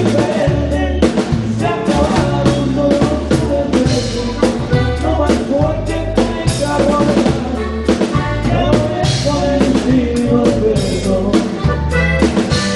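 A live band plays an instrumental break of a corrido, with a drum kit keeping a steady beat under a pulsing bass and melody instruments.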